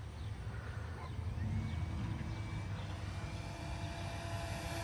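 Electric motor and 15x7 wooden propeller of an E-flite Carbon Cub SS 2.1 m RC plane flying, a steady whine of several tones that comes in about a second and a half in and slowly grows louder as the plane approaches.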